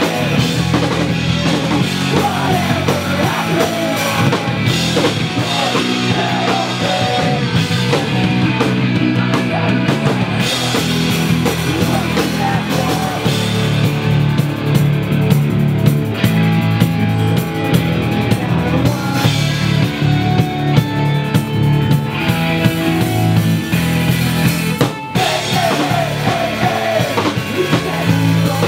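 Post-hardcore band playing live in a small club, heard through a camera microphone: loud drum kit, distorted guitars and bass, and a singer on a handheld mic. There is a momentary break in the music a few seconds before the end.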